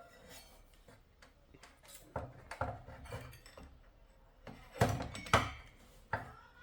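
A few knocks and clatters of hard objects being handled and set down, the two loudest about five seconds in.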